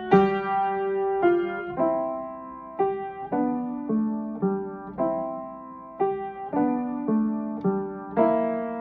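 Piano playing a simple melody with accompanying chords in three-four time, each note struck and left to die away.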